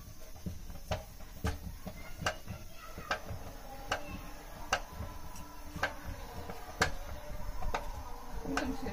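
A long wooden stirring stick knocking against a metal pot about once a second, sharp and evenly paced, as thick haluşka dough is beaten in it.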